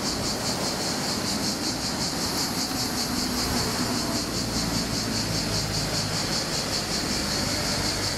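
Cicadas chirring: a high, steady pulsing buzz that keeps an even rapid rhythm, over the low rumble of street traffic with an engine running.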